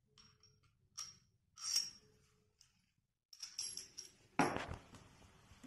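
Steel parts of a self-locking coupler clinking and rattling as it is taken apart: a few scattered metallic clicks, a quick cluster of ringing clinks, then a heavier knock about four and a half seconds in.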